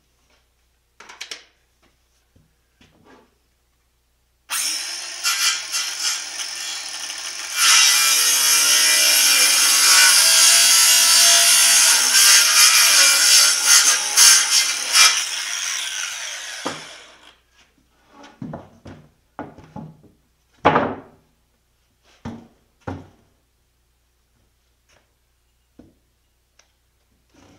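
A power tool runs on oak for about twelve seconds, getting louder a few seconds in, then stops. A series of short, sharp knocks and taps follows.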